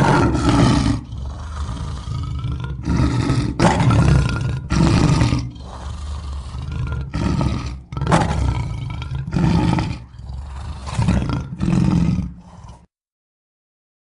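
Custom-made sea-monster (kraken) creature sound effect: a string of deep, rough roars in about a dozen surges, one after another, that cuts off suddenly near the end.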